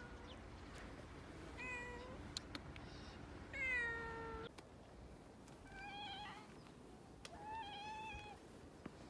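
Cats meowing in a squabble: four drawn-out meows about two seconds apart, the one about four seconds in the longest and loudest.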